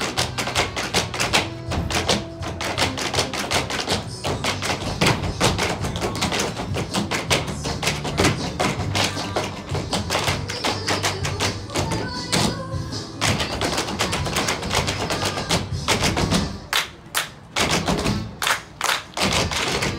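Tap shoes striking a stage floor in fast, dense rhythms over a backing music track with a steady bass line; the taps break off briefly a few times near the end.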